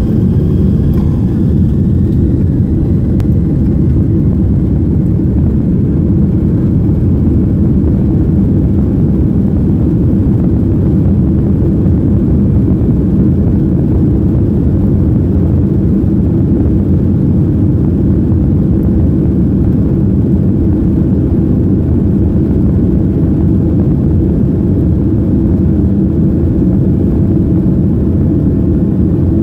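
Jet airliner's engines and cabin noise heard from a window seat over the wing as the plane taxis: a steady low rumble, with a faint steady tone joining in near the end.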